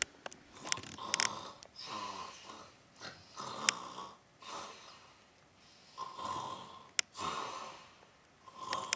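A person snoring: a run of rasping snore breaths, each under a second long, with short pauses between them, plus a few sharp clicks.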